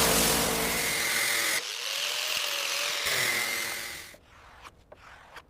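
A power tool running with a high whine, changing abruptly about one and a half seconds in and dying away about four seconds in, followed by a few faint clicks.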